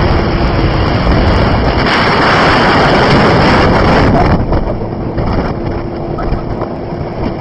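Wind rushing over the microphone and road noise from a moving vehicle, loud and steady with a faint engine hum, easing somewhat about four seconds in.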